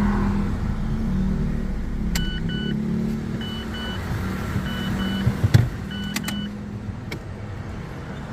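A car's electronic warning chime sounds in four quick double beeps, about a second apart, over a steady low hum. A few sharp clicks come as the shift cable at the automatic transmission's inhibitor switch is worked by hand.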